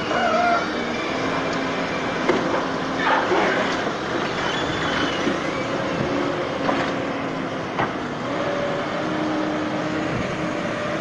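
Heavy vehicle engine running steadily with road and body noise, and a few sharp knocks and rattles.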